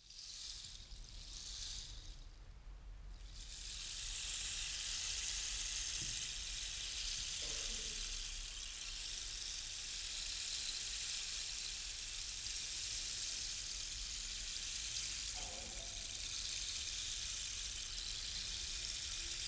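Rain stick: pebbles or seeds trickling down the inside of a long tube, heard as a steady hiss like falling rain. It opens with a few short swishes and settles into a continuous flow about four seconds in.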